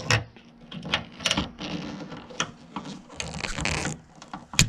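Narrow flathead screwdriver scraping and clicking against the metal clip on the end fitting of a rear-hatch gas strut, prying it off its ball stud, with one sharp snap near the end as the fitting comes loose.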